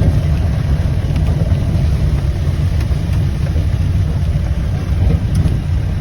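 Vehicle running on the move: a steady, loud, low rumble of engine and road noise.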